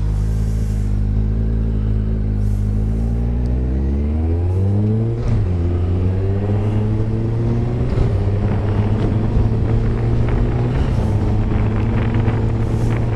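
Motorcycle engine idling, then pulling away about four seconds in: the revs rise, drop at a gear change, climb again and settle into a steady run at road speed, with noise from tyres on the wet road.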